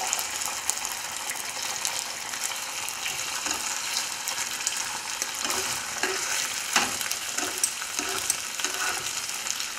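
Squid pieces sizzling and crackling in hot oil in a frying pan, while metal tongs turn them, knocking and scraping against the pan a few times; the loudest knock comes a little under seven seconds in.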